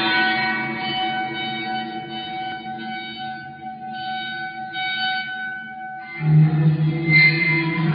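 Eerie music of sustained, held tones; a steady high note hangs for several seconds, then a louder low note comes in about six seconds in.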